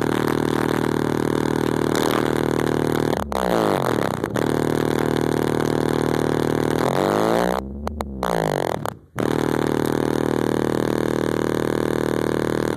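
Heavy bass music played at extreme volume through Kicker L7 15-inch square subwoofers in a car audio system, driven hard to maximum cone excursion. Deep bass tones are held steady, with gliding bass sweeps about three seconds in and again around seven to eight seconds, and brief drop-outs around eight and nine seconds.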